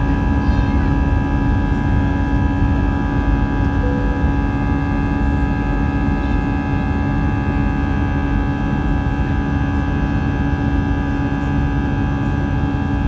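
Airbus A320 cabin noise during the climb after takeoff: a steady low rumble of the jet engines and rushing air, with a few held engine tones over it.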